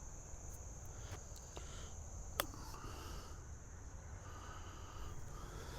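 Golf club striking the ball in a short chip shot: a single sharp click about two and a half seconds in. Insects drone steadily and high-pitched throughout.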